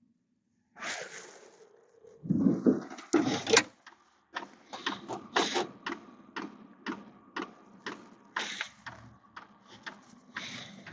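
Diesel heater running, a steady low hum with sharp ticks about two a second, typical of its fuel pump pulsing. Louder knocks and rustles come in the first few seconds.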